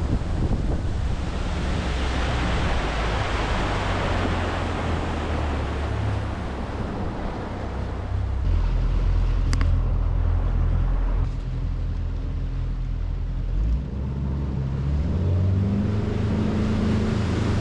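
Fishing boat motor running under way, with wind buffeting and water noise. The engine's low hum shifts in pitch about halfway through and again near the end.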